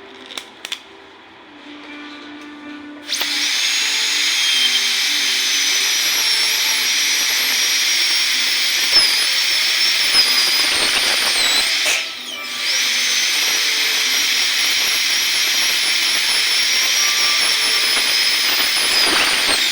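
High-speed dental handpiece whining as an old diamond bur cuts through the metal jaw of a B6 rubber dam clamp. The whine starts about three seconds in and its pitch sags as the bur bites. It stops briefly around the middle, then starts again and cuts off near the end.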